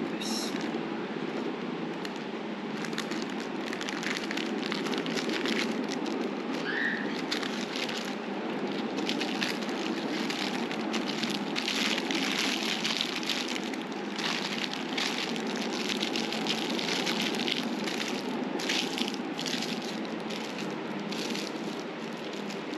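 Thin translucent wrapping sheet crinkling and rustling as hands fold it tightly around a kebab roll. The crackling is densest in the middle and latter part, over a steady background rush.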